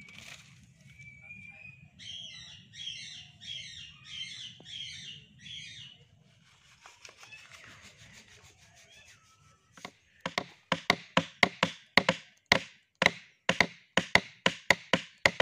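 Hand chisel being struck over and over while carving curved grooves into a wooden bed panel: sharp taps at about three or four a second, starting about ten seconds in. Before that, a short run of about six quiet high chirping calls.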